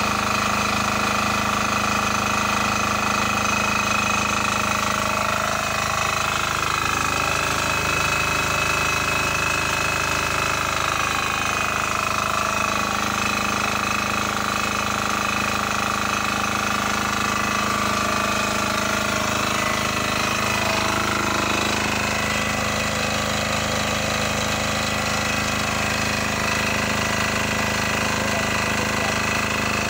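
Lutian LTD5900E diesel generator's 7 hp single-cylinder engine running steadily at constant speed, a continuous hum with a steady whine on top.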